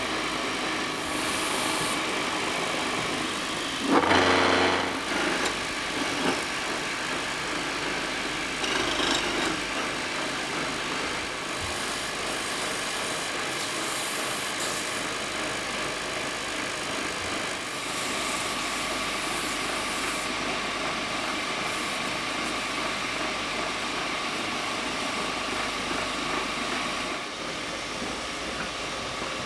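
Motor-driven wood lathe running steadily as it spins a turned wooden flower stand, with a brief louder burst about four seconds in.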